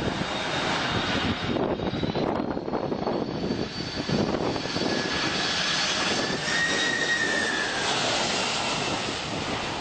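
Boeing 747 airliner passing low overhead on landing approach: a continuous rush of jet engine noise with a high whine that rises slightly in pitch partway through.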